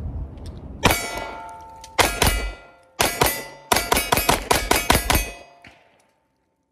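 CZ P01 9mm compact pistol firing. The first shot, about a second in, is a double-action pull, followed by a couple of spaced single shots and then a rapid string of about eight shots in under two seconds. Each report is followed by a ringing tone.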